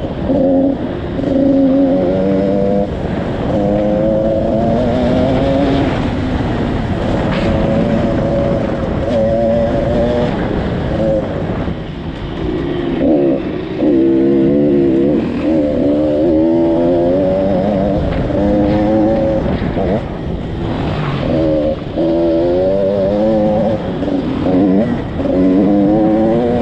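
KTM motocross bike's engine, heard from the rider's seat, revving up and dropping back again and again with throttle and gear changes.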